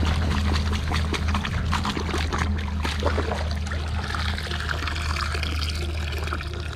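Hand net being worked through a shallow muddy stream: water splashing and sloshing with many small knocks, then pouring and trickling off as the net is lifted out. A steady low rumble runs underneath.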